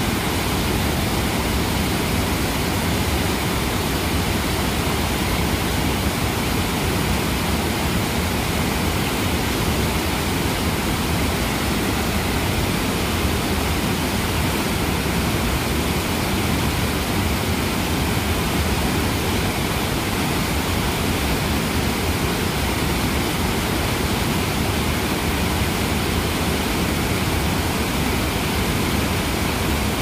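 Steady rush of a waterfall's falling water, an even noise with no breaks or changes.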